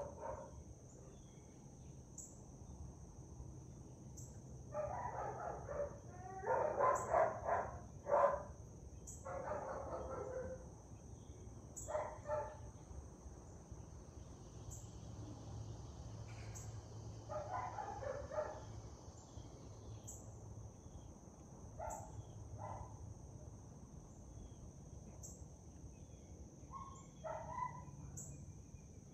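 Animals calling in short bursts several times, the busiest run about five to ten seconds in, over a faint steady high hiss.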